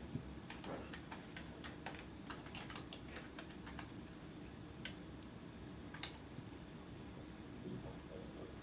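Keystrokes on a computer keyboard: a quick run of typing over the first few seconds, then a few single clicks further on.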